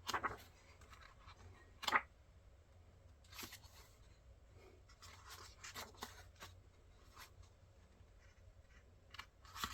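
Paper handling: pages of a calendar diary being turned and rustled, in a few brief scattered rustles, with a sharper one about two seconds in.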